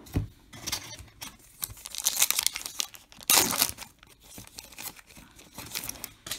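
Foil trading-card pack wrapper being torn open and crinkled in a string of irregular rips, the loudest two to three and a half seconds in.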